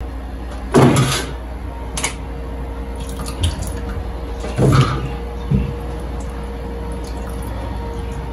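Cauliflower florets being rinsed in a steel bowl of water at a steel sink: water sloshing and dripping as handfuls are lifted out, with a few louder splashes and knocks, the strongest about a second in and again near five seconds.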